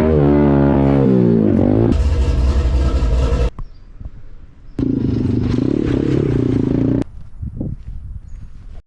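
Dirt bike engine revving, its pitch rising and falling, in a few short clips that cut in and out abruptly, with a rougher, noisier stretch between them.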